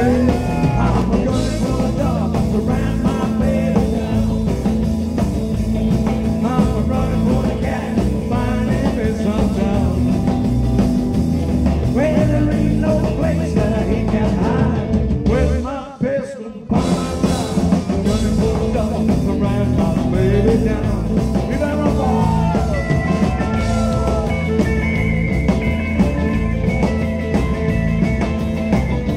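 Live rock and roll band playing: a singer over electric guitars, electric bass and drum kit, with a steady beat. About halfway through the band stops for under a second, then comes back in.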